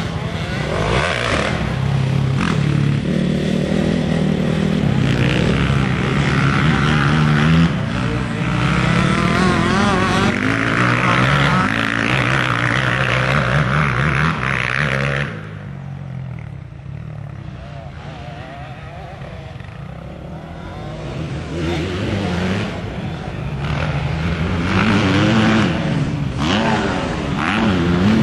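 Motocross dirt bike engines running hard and revving, their pitch rising and falling with the throttle. The engine noise drops away about halfway through, then builds again near the end as bikes come closer.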